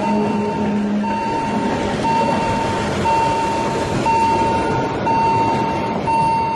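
Railway train of grey freight wagons and a historic yellow Bernina Railway coach rolling past at street level, a steady rumble of wheels on rails. Over it an electronic warning beeper sounds a long high beep about once a second.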